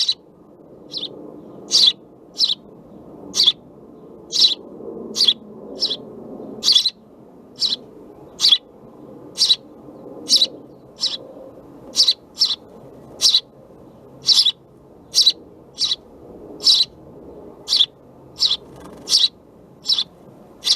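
House sparrow chirping: repeated single short chirps, evenly spaced a little more than one a second.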